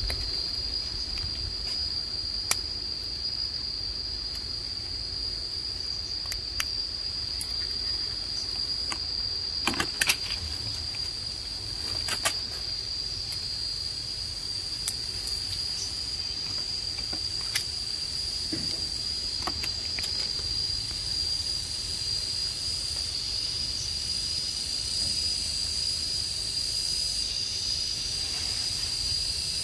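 Steady high-pitched insect drone, with a few sharp clicks and snaps as small round fruits are pulled from their stalks and peeled by hand.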